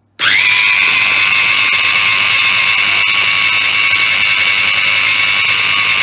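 Tefal MasterChop electric mini chopper motor starting with a quick rise in pitch, then running as a loud, steady whine while its blade purees frozen banana and strawberries with milk.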